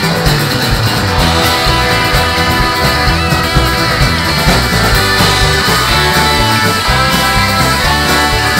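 A live country-rock band plays an instrumental passage between sung lines, with acoustic and electric guitars, keyboard and drums.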